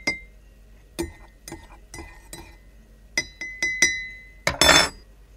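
Teaspoon clinking against a cup as sugar is stirred into tea: separate short ringing clinks, several in quick succession about three seconds in, then a brief noisy rush near the end.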